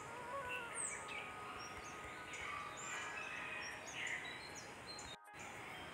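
Many short bird chirps and quick falling whistles over a steady background hiss, with faint held tones. The sound drops out sharply for a moment near the end.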